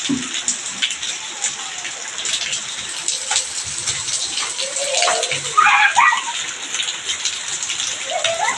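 Heavy rain pouring onto concrete paving and puddles, a steady hiss dotted with small splashes. A child's voice calls out briefly about five seconds in.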